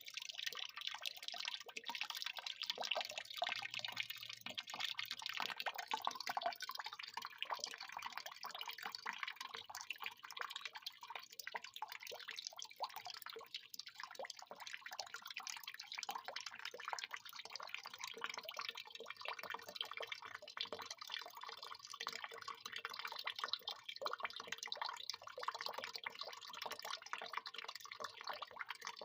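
Water pouring in a continuous stream, splashing and gurgling as it lands in water.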